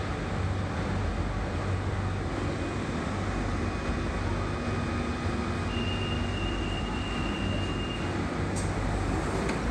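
London Underground Central Line 1992-stock train standing at the platform with its doors open: a steady low hum and rumble from its running equipment under the platform's echoing background noise. A thin high tone holds for about two seconds partway through.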